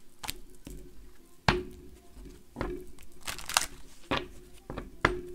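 Tarot cards being handled and shuffled: a run of irregular sharp card snaps and slaps, about nine in all, with a longer papery rustle about three and a half seconds in.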